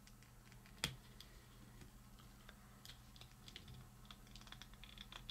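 Faint clicks and ticks of a small plastic Transformers BotBots mini-figure being worked in the fingers as its stiff arm pieces are wiggled out, with one sharper click about a second in.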